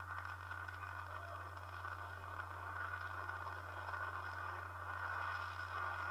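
Falcon 9 first-stage Merlin rocket engine firing its landing burn: a crackling rush of rocket noise that grows steadily louder as the stage comes down to touchdown, over a low electrical hum.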